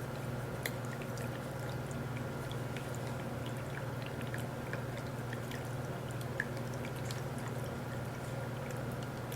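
PetAcc electric cat water fountain running: a steady pump hum under water trickling and dripping, with scattered small ticks.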